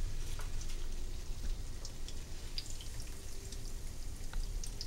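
Spinach fritter batter deep-frying in hot oil in a pan: steady sizzling with many scattered small crackles and pops.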